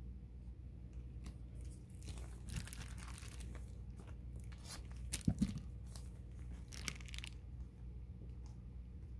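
Aluminium foil tape being pulled off its roll with a tearing, crackling sound, and foil-faced insulation crinkling under the hand, in two spells of a second or more each. About five seconds in, a couple of sharp knocks are the loudest sounds.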